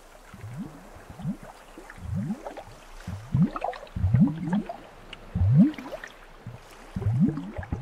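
Water gurgling: a run of short, low bubbling gulps, each rising in pitch, coming irregularly about one or two a second and growing louder about halfway through.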